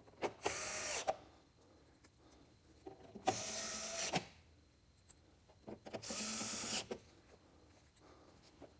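Powered screwdriver driving screws into a printer's sheet-metal cover: three short runs of the motor, each under a second and about two and a half seconds apart.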